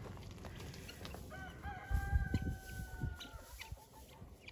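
A rooster crowing once, one long call of about two seconds in the middle, with a few low thumps around the same time.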